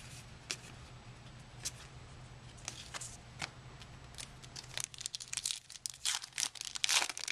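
Foil trading-card pack wrapper crinkling and tearing open in the hands. The crackles are scattered at first and grow dense and louder over the last few seconds.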